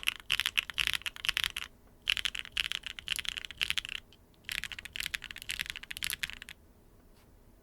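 Typing on a custom mechanical keyboard with Strawberry Cheesecake R2 tactile switches (POK housings, LY stems), a carbon fiber plate and no foam, in a copper-bottomed Neo 75 Cu with GMK Serica keycaps. There are three bursts of fast typing, and it stops about six and a half seconds in.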